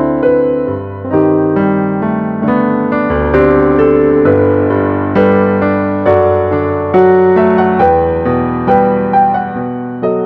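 Yamaha CK88 stage keyboard playing a slow, gentle piano piece: chords and a melody, with new notes struck about once a second and each dying away.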